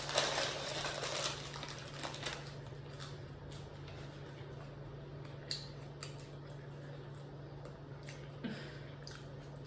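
Soft eating and food-handling noises: a rustling scrape in the first second, then scattered faint clicks and crunches, over a steady low hum.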